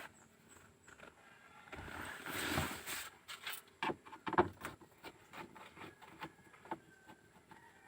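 Handling noise of work on a vehicle's wiring: rustling about two seconds in, then a string of sharp clicks and knocks, the loudest about four and a half seconds in.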